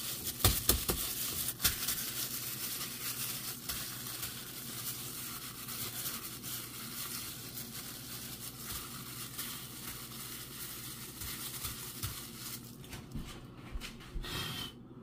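A plastic food glove crinkling and rustling as a hand rubs seasoning into raw steaks. There are a few sharp taps in the first two seconds, and the rustling thins out near the end.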